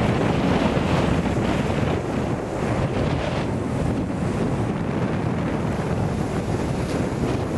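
Ocean surf breaking and washing over rocks, with strong wind buffeting the microphone in a steady low rumble.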